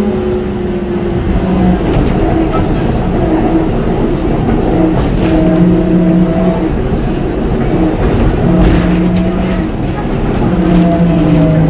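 Ikarus 280T articulated trolleybus on the move, heard from inside: the electric traction motor hums in steady tones that come and go over a constant rumble of road noise and body rattle. Near the end the motor tone shifts in pitch as the speed changes.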